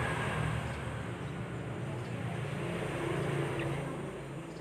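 Steady low rumble with an even hiss over it, easing slightly near the end; no clear birdsong phrases stand out.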